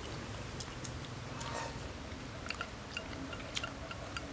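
Quiet eating sounds: chewing, with scattered light clicks of chopsticks against ceramic bowls.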